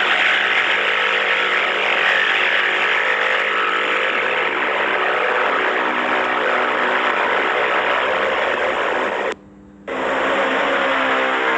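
A recorded 'tripod' sound effect played back through a phone voice-changer app with a deep-voice effect, a steady, dense blaring noise. About nine seconds in it cuts off for half a second, then starts again played in reverse.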